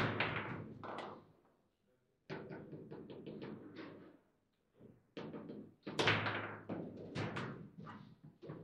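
Table football in play: quick runs of sharp knocks and clacks as the ball is struck by the plastic figures and hits the table, with the rods being worked. The knocking comes in three bursts, with short silent pauses about two seconds in and again after four seconds.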